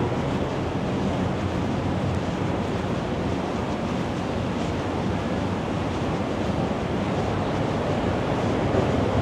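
Steady ambient noise of a busy city, an even wash of sound with no distinct events standing out.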